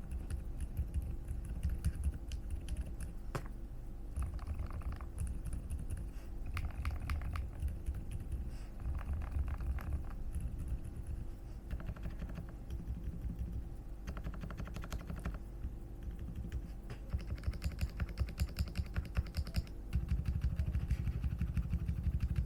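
Fast typing on a ZOUYA GMK67 mechanical keyboard with silent switches: dull, muted keystrokes in rapid runs with short pauses, quickening near the end.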